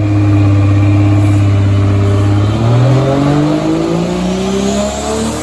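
Lexus SC300's turbocharged 1JZ-GTE inline-six running on a hub dyno on its 91-octane, 14 psi base tune. It holds a steady note for about two and a half seconds, then the revs climb smoothly and steadily as the pull begins.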